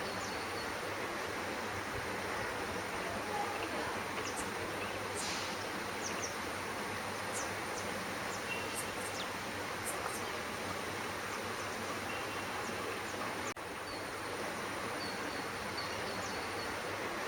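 Steady outdoor background hiss with scattered faint, short, high-pitched bird chirps and a thin steady high whine underneath. The sound dips out for a moment about three-quarters of the way through.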